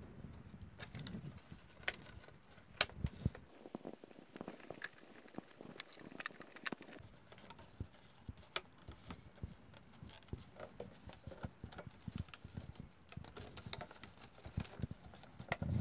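Handling noises from a cut plastic PET bottle and a non-woven fabric cover being fitted under a rubber band: scattered light clicks, taps and rustles, with one sharp click about three seconds in.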